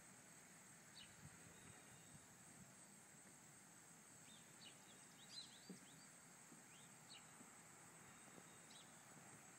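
Near silence: quiet outdoor ambience with faint, short bird chirps, several close together about five seconds in, over a steady high hiss.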